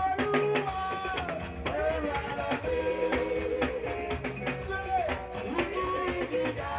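Music with a steady drum beat and a singing voice.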